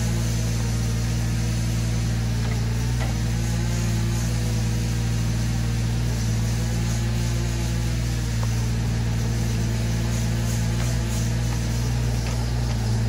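Yanmar Vio17 mini excavator's three-cylinder diesel engine running steadily, with a few faint knocks.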